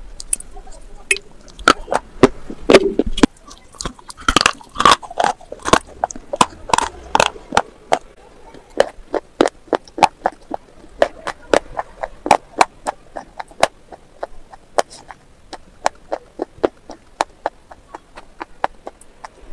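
Close-miked crunching and chewing of slate pencil pieces: a long run of sharp, crisp crunches, about one to two a second, busiest in the first few seconds.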